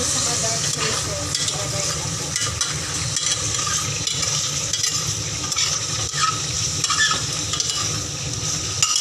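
Sea cucumbers sizzling in a stainless steel pot as a metal ladle stirs them, a steady frying hiss.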